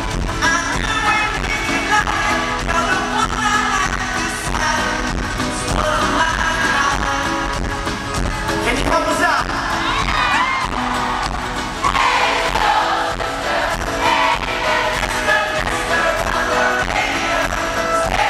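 Live pop-rock band playing, with a male lead vocal singing over ukulele, guitar and drums, recorded from the crowd at a concert.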